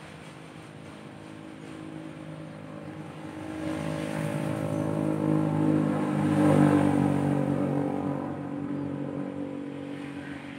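A small engine passing by: a steady running note that grows louder to a peak about six and a half seconds in, then slowly fades.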